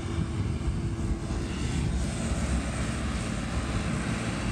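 A vehicle engine running steadily, a low, even drone with no change in speed.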